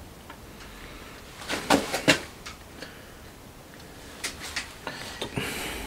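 Setup knocks at a milling machine vise holding an aluminium cylinder head: two sharp knocks close together a little under two seconds in, then a few lighter clicks and a short scrape near the end.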